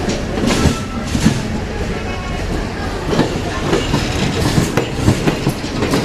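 Train rolling past, its wheels clattering and knocking over the rail joints in a steady run of clicks.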